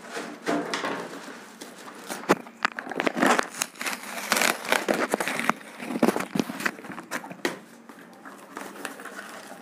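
Parcel packaging being handled and opened by hand: irregular rustling and crinkling with scattered clicks and scrapes, busiest in the middle.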